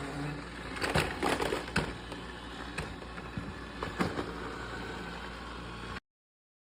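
Roborock S8 MaxV Ultra robot vacuum running with a steady hum, with a cluster of knocks and clatters about a second in and another knock near four seconds, as it bumps over the threshold ramp.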